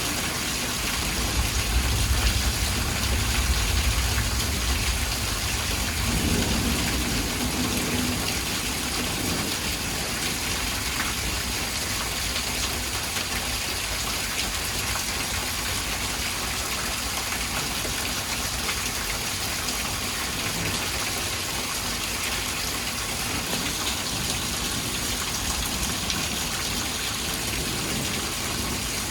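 Heavy rain falling steadily, with a low rumble of thunder in the first few seconds.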